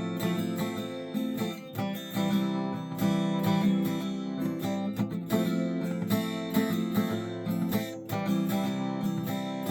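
Acoustic guitar strummed in a slow, steady chord pattern, the instrumental lead-in before the vocal.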